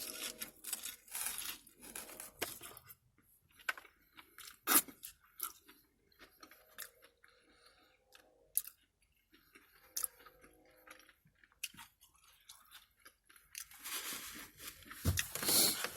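Close-up chewing and crunching of food, with scattered short crunches and mouth clicks; the loudest crunch comes about five seconds in.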